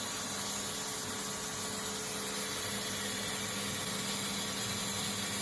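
Reverse osmosis water treatment machine running just after start-up: its pump gives a steady hum with two even tones over a constant hiss.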